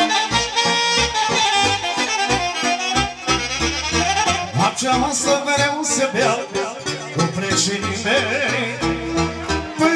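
Live band instrumental break: an electronic keyboard plays a fast accordion-like melody with a saxophone, over a steady bass beat through PA speakers.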